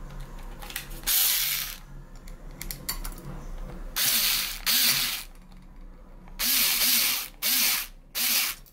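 A power screwdriver driving screws through the metal mirror holders into the wall, run in about six short bursts of well under a second each, with quieter handling between them.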